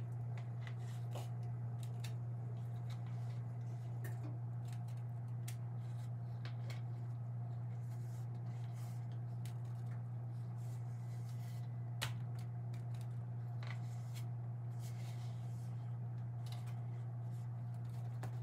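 Rubber spatula scraping thick, sticky brownie batter out of a mixing bowl into a metal baking pan: faint scrapes and soft clicks, over a steady low hum.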